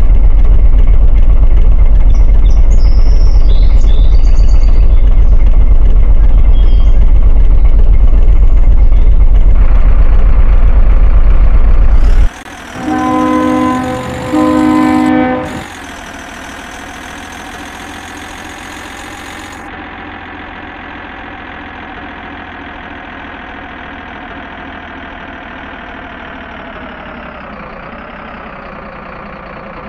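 A loud, steady low engine rumble that cuts off suddenly about twelve seconds in. Two horn blasts of about a second each follow, then a quieter, steady engine hum.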